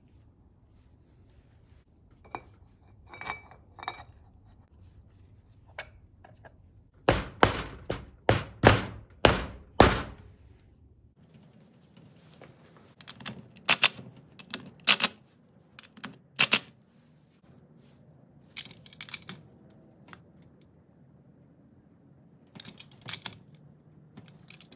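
Metal parts and tools clinking and knocking on a Toyota HF2A transfer case as parts are fitted over its output shaft: a few light clinks, then about a third of the way in a quick run of about seven hard knocks, then scattered sharp clicks.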